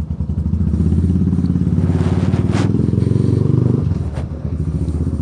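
Yamaha Byson single-cylinder motorcycle engine heard from the rider's seat, pulling with the throttle open and then easing off about four seconds in. Two short sharp clacks, one about halfway through and one just after the throttle closes.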